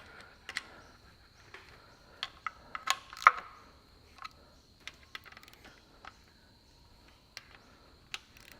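Scattered sharp metallic clicks and clinks of a hand tool on the timing-cover housing bolts, as each bolt is checked for tightness; the loudest clink comes about three seconds in.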